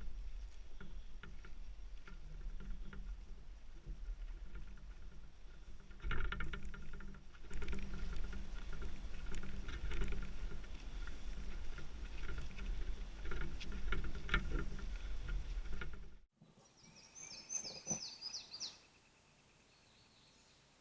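Dense patter of rain close to the microphone over a steady wind rumble, stopping abruptly at a cut. A bird then calls briefly with quick high descending notes.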